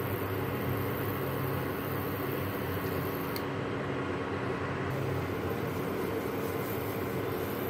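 Induction cooktop switched on under a flat pan: a steady fan hum with a few constant low tones.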